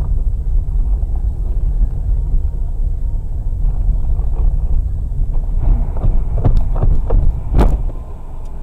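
Steady low rumble of a car's engine and tyres on the road, heard from inside the cabin, with a few short knocks and clicks in the second half. The rumble eases near the end as the car comes to a stop in traffic.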